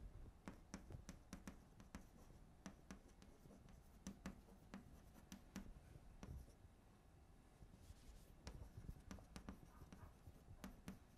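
Near silence with faint, scattered taps and scratches of writing: chalk on a blackboard and pens on paper.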